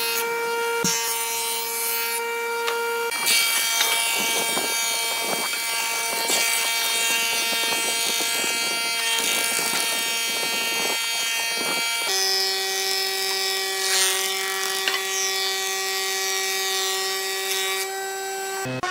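Old woodworking planer running with a steady whine while a board is fed through and its knives shave the wood, a coarse rasping hiss over the motor tone. The machine's tone changes abruptly twice.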